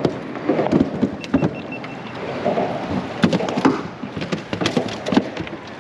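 Irregular knocks and thumps in a small fishing boat while a freshly landed jack crevalle is handled and flops about.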